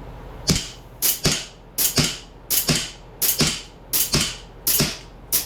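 1911-style Springfield replica CO2 air pistol fired in a quick string of about eight shots, a little under one a second, each a sharp crack mostly followed at once by a second crack.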